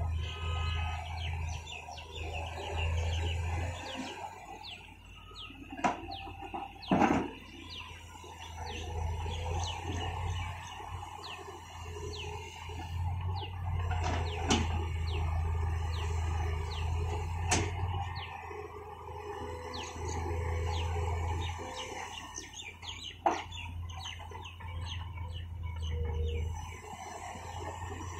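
Long-reach Sumitomo Link-Belt excavator's diesel engine running with a low hum that swells and eases as it digs, with birds chirping throughout. A few sharp knocks stand out, the loudest about seven seconds in.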